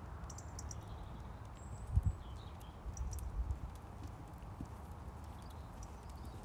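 Horse's hoofbeats on an all-weather riding arena surface: dull thuds, the loudest a double thud about two seconds in, then a quick run of them a second later.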